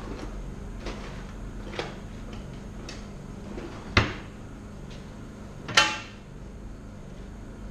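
Handling knocks on a forced-air heater's open sheet-metal housing during repair work: a few light clicks, a sharp knock about four seconds in, then a ringing metallic clank near six seconds.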